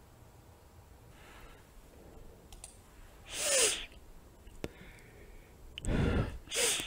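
A person breathing close to the microphone: a breath about three and a half seconds in and two more near the end, with faint mouth clicks in between.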